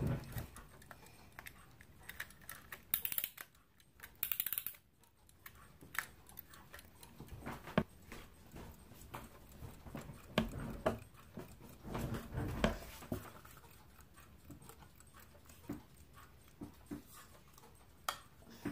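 Irregular clicks and knocks of clocks being handled as a folding travel alarm clock's hinged case is opened and closed, with two brief rustling hisses a few seconds in and a cluster of knocks around the middle.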